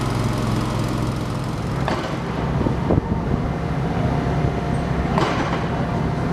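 An engine running steadily, with a few sharp metallic knocks from steel fabrication work.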